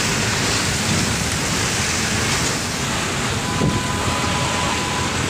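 Steady rushing wind and road noise from a moving vehicle on the phone's microphone. A faint steady tone joins about three and a half seconds in.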